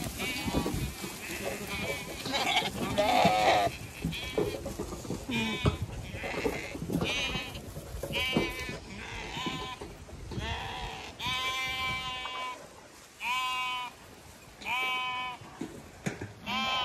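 Zwartbles lambs bleating again and again: many overlapping calls at first, then single wavering bleats about every second and a half in the second half. Wind buffets the microphone during the first half.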